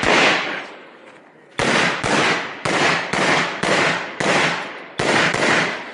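AR-15 rifle firing semi-automatic shots: one at the start, then after a pause of about a second and a half a string of six shots about half a second apart, and two more close together near the end, each shot echoing briefly.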